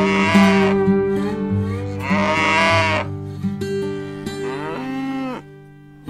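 Cattle mooing: two long, loud moos about a second apart, then a softer third one, with background guitar music.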